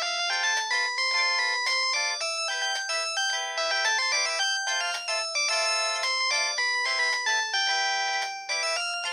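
Polyphonic ringtone of a Samsung SGH-C140 mobile phone: a fast, bright melody of short synthesized notes in several voices at once, thin and without bass.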